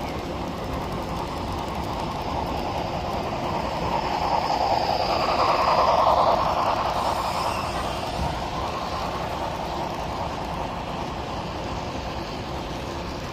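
HO scale model train running past on the layout track, its wheels and motor making a steady rolling rush that swells to loudest about six seconds in and then fades.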